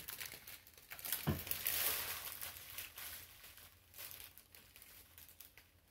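Plastic packaging crinkling and rustling as it is handled, with a soft thump about a second in; bags of diamond-painting drills.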